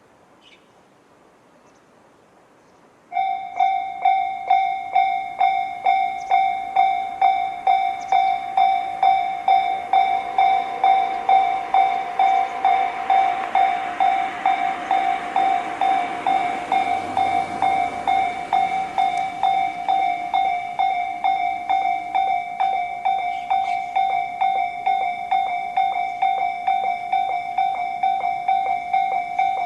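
Japanese level-crossing electronic alarm bells of Tobu's 'sound C' type, ringing from both sides of the crossing. They start abruptly about three seconds in and repeat a bright ding at about two strikes a second. A broad rushing noise swells and fades under the bells in the middle.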